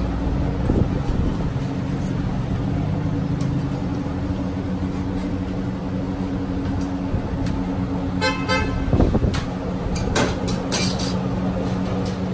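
Steady low hum of street traffic and machinery, with a short car horn toot about eight seconds in. A knock and a few sharp clicks follow just after.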